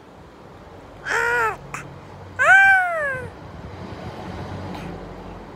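A toddler squealing twice: a short high-pitched cry about a second in, then a louder, longer one that rises and falls in pitch.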